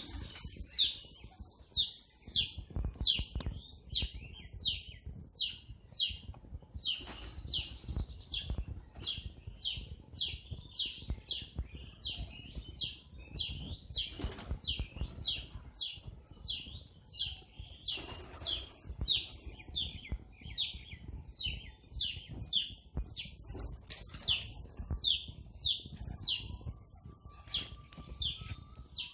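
A small bird repeating a short, high, falling chirp about twice a second, over the low flutters and thumps of pigeons' wings.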